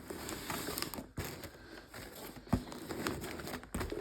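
Packaging being handled and opened: irregular rustling and crinkling with scattered small clicks, and a sharp knock about two and a half seconds in.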